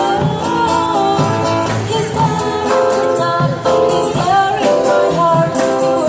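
A singer performing a song live with instrumental accompaniment from a street-busking band, the voice gliding between held notes.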